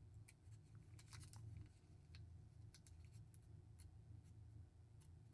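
Faint crinkling and small clicks of a thin clear plastic zip bag being pulled and pinched by fingers as it is worked open, over a low steady hum.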